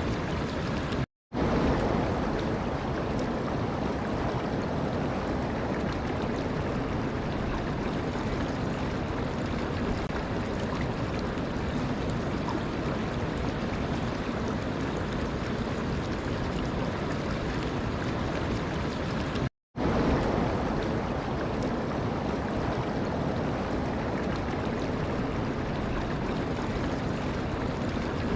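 Steady rush of flowing water. Twice it cuts out to silence for a split second before resuming.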